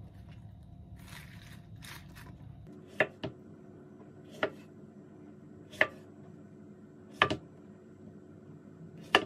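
Kitchen knife slicing strawberries on a wooden cutting board: a sharp knock of the blade reaching the board about every second and a half, five times, starting about three seconds in, some strokes doubled. Before the cutting starts there is a soft rustle of a plastic bag being handled.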